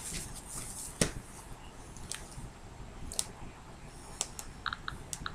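Faint scattered clicks and ticks of hand handling, with a sharper click about a second in and a few brief high pips near the end.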